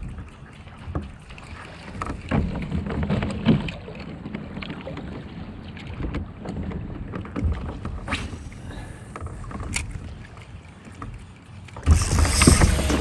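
Wind buffeting the microphone over water lapping at a kayak hull on open sea, with a few scattered clicks and knocks. A much louder sound comes in near the end.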